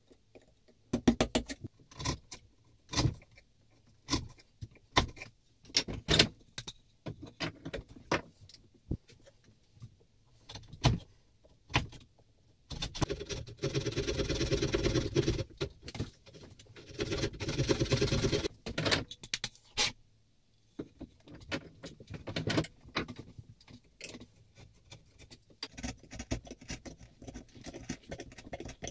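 Hand tools cutting beech wood. First come scattered sharp chisel clicks and taps. Midway, a small fine-toothed saw rasps in two runs of quick strokes inside the plane's escapement slot. Near the end, lighter chisel paring scrapes and clicks follow.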